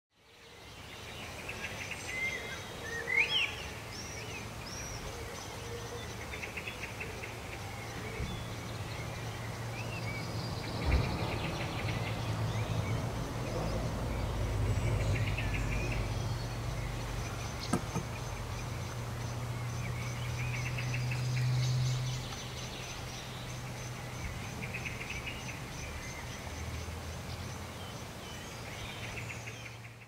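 Evening garden ambience: birds, blackbirds among them, calling and chirping on and off over a steady low rumble of distant traffic. The rumble swells in the middle and drops back about twenty-two seconds in, and two brief clicks stand out.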